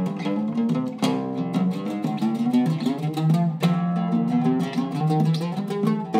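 A Zeryab oud, with a cedar top and an Indian rosewood back, played solo with a plectrum: a melodic run of quick plucked notes, with a few harder strikes standing out.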